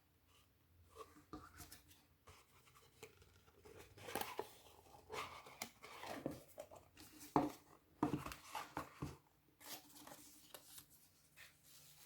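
Hands handling a compact card-holder wallet and its packaging: irregular rustling and sharp clicks, busiest in the middle.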